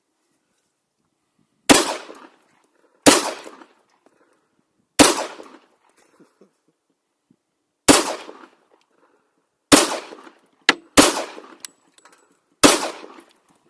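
A .45 ACP 1911 pistol fired seven times at an uneven pace, one to three seconds apart, each shot echoing briefly. A smaller, sharper crack comes just before the sixth shot.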